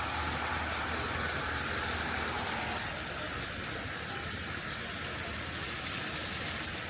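Steady rushing noise of running water, even throughout, with a faint low hum under the first few seconds.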